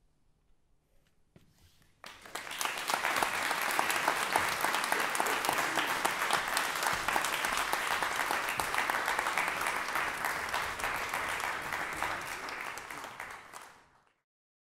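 Audience applauding, starting suddenly about two seconds in after a near-silent pause and fading out near the end.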